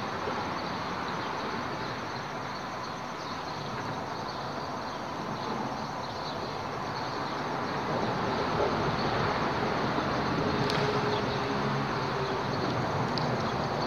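Steady rumble of road traffic on the highway bridge overhead, growing a little louder about two-thirds of the way through.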